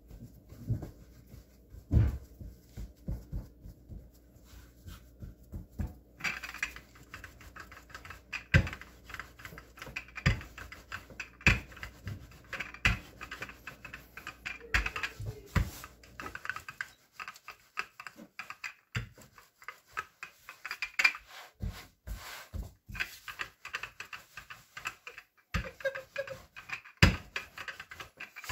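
Hands pressing and patting stiff hardtack dough on a floured wooden board. From about six seconds in, a wooden rolling pin rolls the dough out with a scraping, rumbling sound, broken by irregular clicks and knocks.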